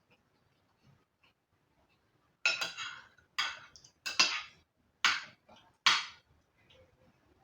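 Cutlery striking and scraping against a dish of pasta, five sharp clinks about a second apart starting a couple of seconds in, with faint small clicks between.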